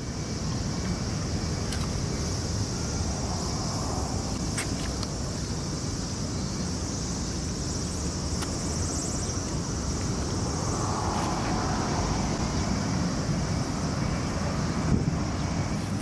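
Outdoor ambience: a steady low rumble of wind and distant engine noise, under a steady high hiss, with a few faint clicks.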